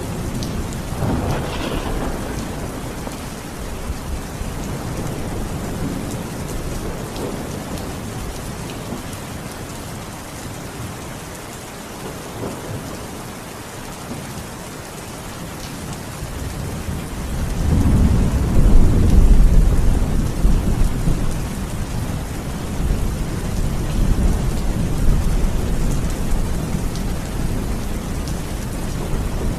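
Steady heavy rain with rolling thunder: a low rumble swells near the start, and a longer, louder roll of thunder comes a little past the middle, fading slowly back into the rain.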